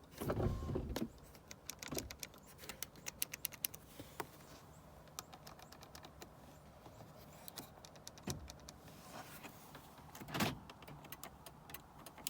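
Small plastic clicks and taps from handling and pressing car window switch buttons: a quick run of clicks in the first few seconds, then scattered ones, with a louder knock near the start and another about ten seconds in.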